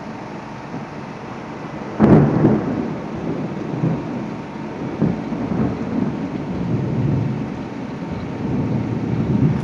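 Thunder from a nearby lightning strike: a sudden sharp crack about two seconds in, then rumbling that rolls on with further swells, over a steady hiss of heavy rain.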